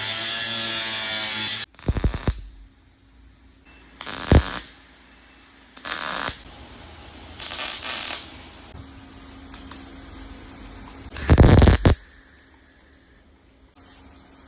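Power tools at work in a workshop: a motor running with a steady whine for the first second and a half, then about five separate short loud bursts of tool noise with quieter pauses between them.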